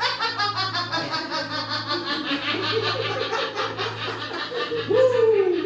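Rapid, unbroken laughter in many short 'ha' pulses a second, ending about five seconds in with a loud falling cry: the uncontrolled 'holy laughter' of the joy of the Holy Spirit in charismatic prayer. A low steady hum runs underneath.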